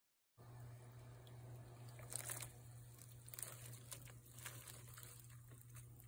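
Faint sound of a pan of fiddlehead ferns blanching in boiling water: a low steady hum under scattered small crackles and pops.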